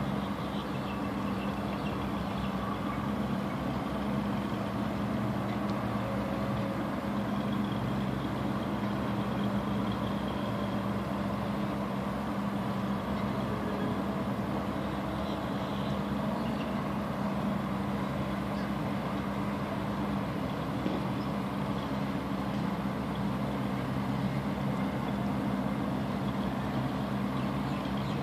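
Steady low drone of an engine or motor running at idle, unchanging throughout.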